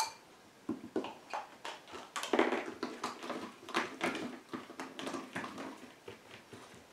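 A dog nosing among small plastic cups on carpet: scattered light taps and knocks as the cups are nudged, one tipped over, with a longer rustle about two and a half seconds in.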